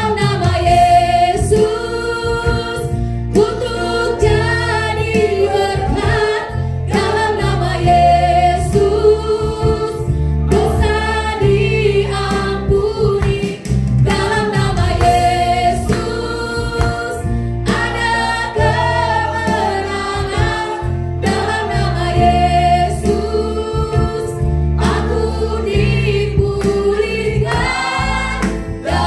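Gospel worship music: a group of voices singing a slow melody together over a band with a deep, steady bass.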